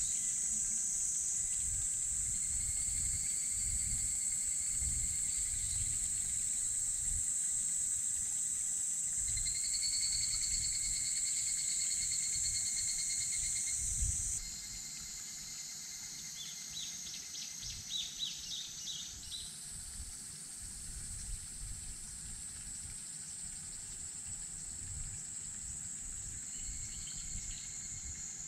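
Insects droning steadily at a high pitch, with a second, lower insect buzz that comes and goes in stretches of a few seconds; the whole chorus becomes quieter about fourteen seconds in, and short rapid chirps follow a little later.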